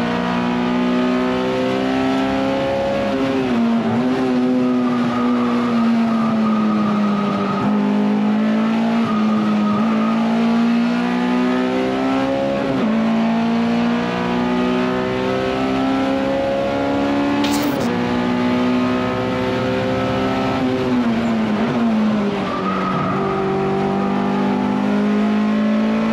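Honda S2000 race car's four-cylinder engine at full race pace, heard from inside the cabin. Its pitch climbs as it accelerates and drops sharply on lifts and downshifts every few seconds, with tyres squealing briefly through some corners.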